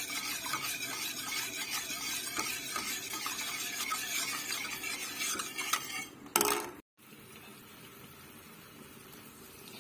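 Wire whisk stirring yogurt soup in a stainless steel pot: a steady swishing with light clinks against the metal as the mixture is stirred constantly to keep the yogurt from splitting. A short loud burst comes a little after six seconds in, then the sound cuts off abruptly and only a faint steady hiss follows.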